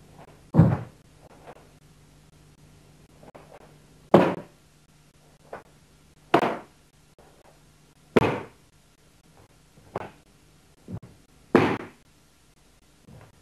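Sharp cracks of a cotton karate gi snapping with punches and strikes, mixed with bare feet thudding on a wooden floor, during a kata. About seven loud ones come at irregular intervals of one to two seconds, each with a short echo, with a few fainter ones between, over a faint steady hum.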